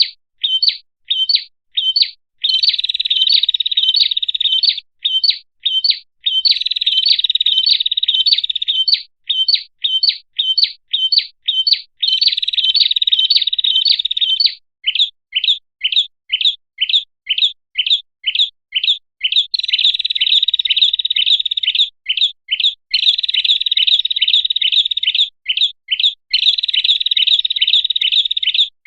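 Recorded song of a prenjak kepala merah (a small red-headed prinia-type songbird), played as a bird lure. Long buzzy trills alternate with runs of short, quick chirps at about three a second, some of them falling in pitch.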